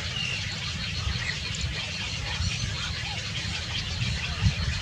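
Faint, short high bird chirps scattered over a steady low rumble.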